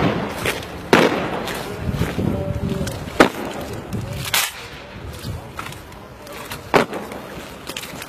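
Military rifle drill: a squad slapping rifles and stamping boots in unison, heard as about five sharp cracks at irregular intervals, each with a short echo.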